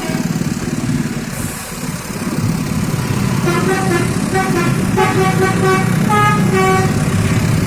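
A bus's basuri multi-tone musical horn plays a quick tune of short, changing notes from about three and a half seconds in until about seven, over the steady low rumble of the bus engine. A brief hiss comes about one and a half seconds in.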